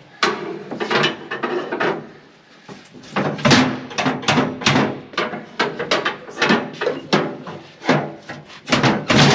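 Repeated scraping, rubbing strokes, several a second and uneven, as the feederhouse floor of a John Deere combine is shoved back down after being popped up too far.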